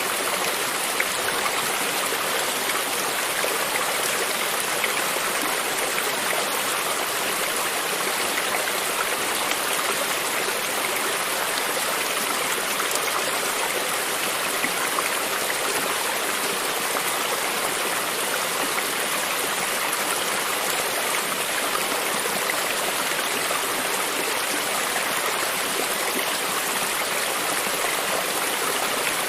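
Shallow stream of running water flowing steadily over stones, a continuous babbling rush with small splashes and trickles throughout.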